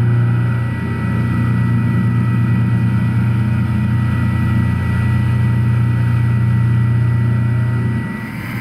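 Doosan DVF-8000T five-axis CNC mill cutting a block of Ti-6Al-4V titanium under flood coolant. A steady, loud machine hum carries a thin high whine, with the hiss of coolant spray, and drops slightly near the end.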